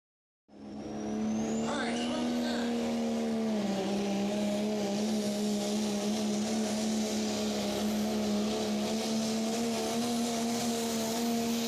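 Dodge Ram pickup's diesel engine at full throttle pulling a sled, held at high, steady revs with a slight drop in pitch about three seconds in. It comes in abruptly, with a high whine rising in pitch over the first second or so.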